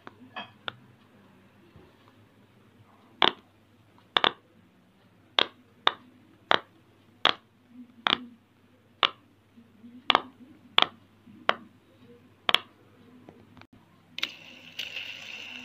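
Bubbles of a silicone pop-it fidget toy being pressed one at a time: about a dozen sharp pops, roughly one every two-thirds of a second. A steady rustling noise starts near the end.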